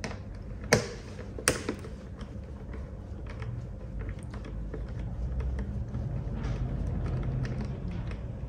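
Small metal clicks and taps of a hand tool working the screen bolts on a BMW R nineT Racer's fairing. There are three sharp clicks in the first second and a half, then fainter ticking over a low rumble.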